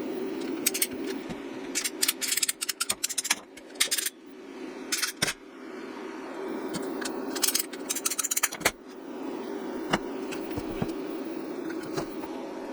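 Clusters of sharp clicks and rattles of small hard objects being handled, over a steady low hum.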